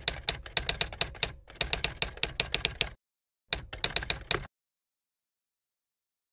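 Typewriter sound effect: fast clacking keystrokes, about eight a second, in two runs with a short pause about three seconds in, stopping abruptly about four and a half seconds in.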